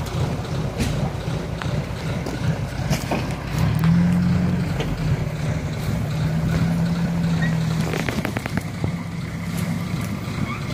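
Diesel engines running during a rope recovery from mud, the Land Rover 90 towing the stuck DAF army truck. About four seconds in the engine note rises and holds steady as the pull takes up the load, easing off around eight seconds in, followed by a few sharp knocks.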